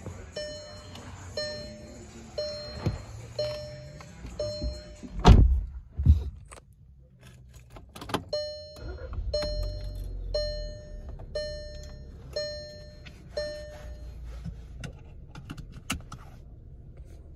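2016 Volkswagen Jetta's warning chime ringing about once a second, cut by two heavy thunks about five and six seconds in. The chime then resumes with the ignition on, and the 1.4-litre turbocharged four-cylinder starts and settles into a low idle about ten seconds in.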